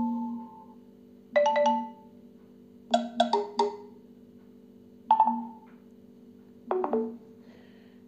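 A OnePlus phone's speaker playing previews of its notification tones: about five short, bright chime-like jingles, one after another, each sounding as a different tone is selected from the list.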